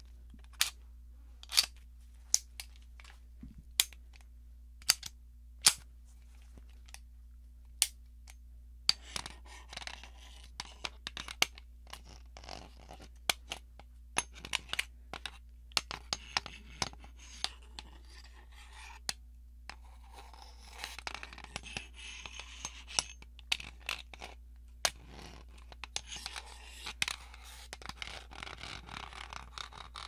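Two Springfield Armory 1911 pistols handled together. First come about seven sharp metallic clicks, spread over several seconds. After that, about nine seconds in, a long stretch of metal scraping and rubbing begins, with many small clicks scattered through it.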